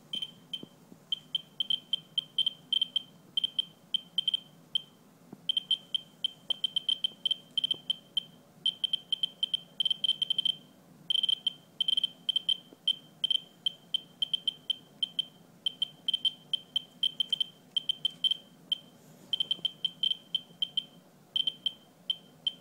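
Ludlum survey meter's audio speaker giving high-pitched clicks, one per count from a 44-9 pancake Geiger-Mueller probe. The clicks come rapid and irregular, several a second, in random bunches with short gaps. The probe is resting on a rain-soaked paper towel and reading about 300 to 360 counts per minute, roughly ten times the 20 to 50 cpm background.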